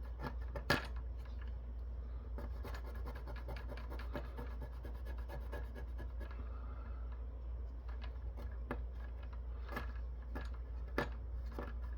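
Fingernail scraping and rubbing thermal paste off a chip on a circuit board: a soft scratching with scattered small clicks, one sharper click just under a second in, over a steady low hum.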